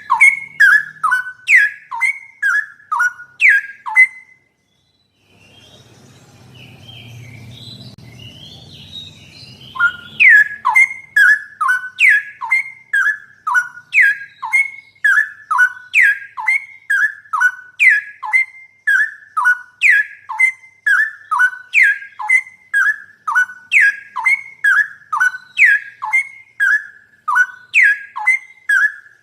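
Straw-headed bulbul (cucak rowo) song: loud whistled notes, each sliding down in pitch, repeated about twice a second. About four seconds in the notes stop, leaving a low rumble with faint chirps for several seconds, then the whistled series resumes.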